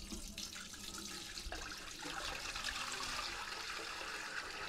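Water pouring steadily from a metal pitcher into a large enamel pot with a wire rack in the bottom, growing a little fuller about a second and a half in.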